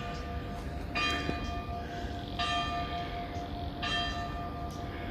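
Church bell tolling, struck three times about a second and a half apart, each strike ringing on into the next.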